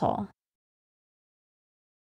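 Silence: a recorded voice ends its sentence in the first moment, then nothing at all is heard.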